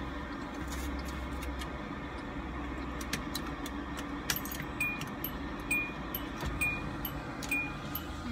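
Steady low drone of a semi truck's engine running alongside the car, heard from inside the cabin through an open window. From about four seconds in, a short high electronic chime dings about once a second.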